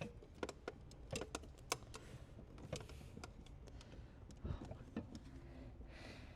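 Small parts being handled and fitted into an air-suspension management unit: irregular light clicks and taps of plastic and metal, with a brief rustle or two.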